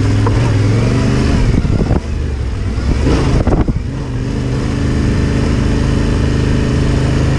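Yamaha Ténéré 700's parallel-twin engine running as the motorcycle rides along a dirt trail. The engine note dips briefly about two seconds in, a short rough burst of noise comes about a second later, and then the engine runs steadily again.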